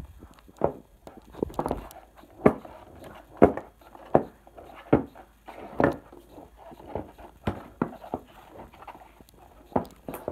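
A series of dull thumps on a wooden floor, roughly one a second.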